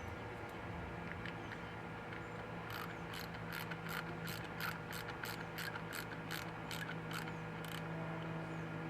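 Hand ratchet clicking in an even run of about a dozen clicks, two to three a second, while fasteners are turned during reassembly.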